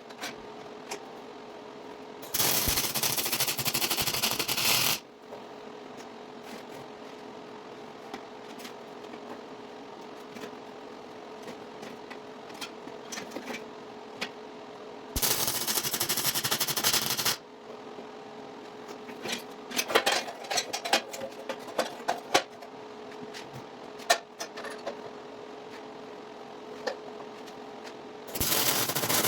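Arc welder laying three short welds of about two seconds each, the arc crackling loudly with each bead, over the welder's cooling fan humming steadily. Scattered clicks and taps come between the second and third welds.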